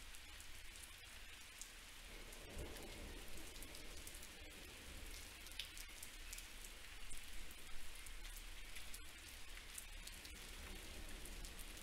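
Faint steady outdoor ambience with scattered light ticks, a little louder in the second half.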